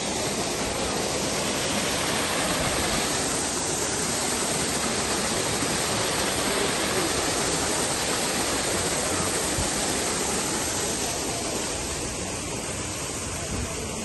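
Steady rush of falling water, as from a waterfall, holding even throughout.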